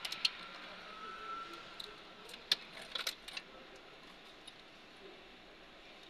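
Light clicks and rattles of car wires and their plastic connectors being handled and twisted together while a burnt wiring harness is repaired, with a few sharper ticks about two and a half to three and a half seconds in.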